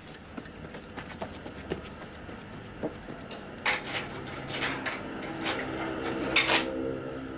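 Light metallic clicks and knocks from a bicycle's rear wheel and derailleur being handled, scattered at first and coming thicker and louder about halfway through. Music fades in near the end.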